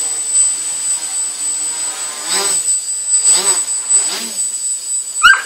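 Quadcopter's motors and propellers whining steadily, swelling and rising then falling in pitch three times as the throttle changes. A dog barks once right at the end.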